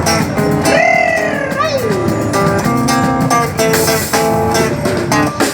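Live samba with acoustic guitar strumming. About a second in, a high pitched tone slides up, holds, then falls steeply away.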